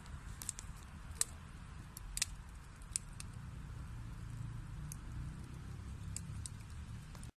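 Wood fire burning in a fireplace: a steady low rush of flame with scattered sharp crackles and pops from the burning logs, the loudest about a second and two seconds in. The sound cuts out abruptly for a moment at the very end.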